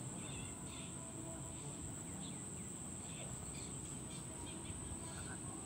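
Steady high-pitched insect drone over outdoor background noise, with scattered short bird chirps.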